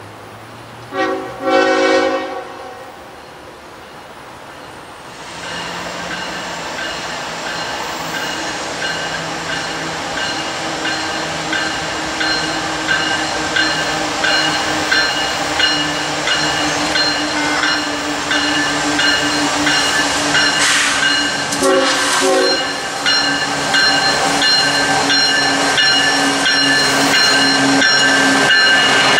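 Approaching CSX freight train: two short horn blasts about a second in, then diesel locomotive engines and rail noise growing steadily louder as it nears, with another brief horn sound a little after twenty seconds. The lead locomotive passes close at the end.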